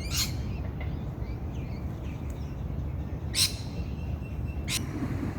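Birds calling: three sharp, short high calls, one at the start, one past the middle and one near the end, with fainter chirps between them over a steady low rumble.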